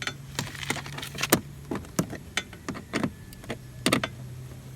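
Irregular sharp metallic clicks and taps from an Allen key and bolts being handled while fitting motorcycle body bolts, about a dozen in a few seconds, over a faint steady low hum.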